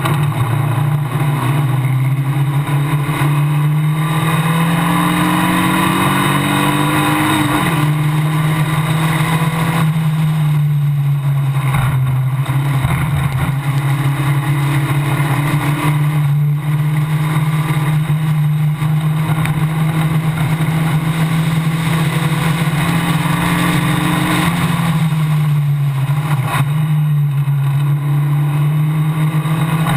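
Onboard engine of a Formula Basic open-wheel race car at racing speed, heard from the driver's seat. Its note climbs steadily under power, drops away three times as the car brakes and shifts down for corners, and builds again.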